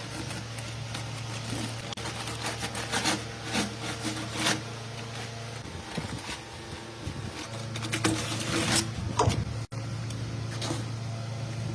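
A small motor running with a steady low hum, with scattered clicks and knocks over it; the hum drops out for about a second and a half near the middle, then comes back.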